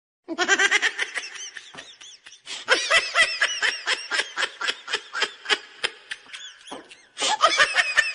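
Laughter: a long run of quick, repeated laughs, about four a second, breaking off briefly near the end and then starting again.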